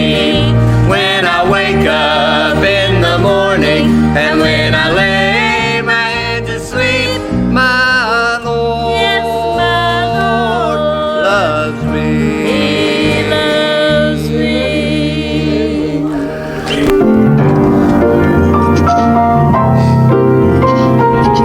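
Gospel singing with instrumental accompaniment. About two-thirds of the way through, the singing gives way to a louder instrumental passage led by piano.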